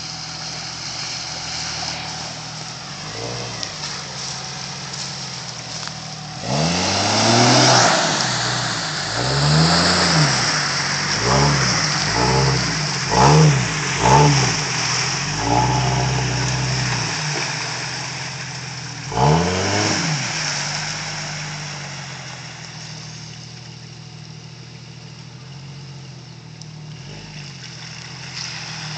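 Jeep Cherokee XJ engine revving hard in a run of about eight bursts, each rising and falling in pitch, as it drives through deep mud and water in two-wheel drive. Steady running before the first rev about six seconds in, and quieter steady running through the last third.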